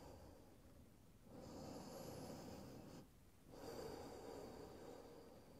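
Faint, slow breathing by a person holding a seated forward fold: two long breaths, the first starting about a second in and the second after a short pause.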